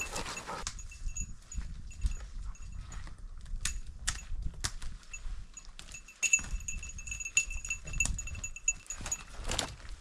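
Footsteps of a person and dogs moving through brush, with scattered sharp snaps of twigs and branches. A high, bell-like tinkling comes and goes through the middle.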